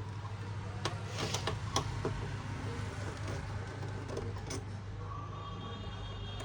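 A few light clicks and taps of laptop case parts being handled and fitted back together, over a steady low hum.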